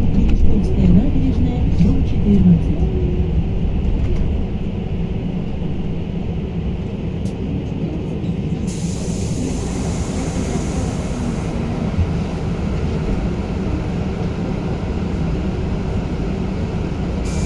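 Cabin noise of a KamAZ-6282 battery-electric bus under way: a steady low rumble of road and tyres. In the first few seconds a motor whine shifts in pitch.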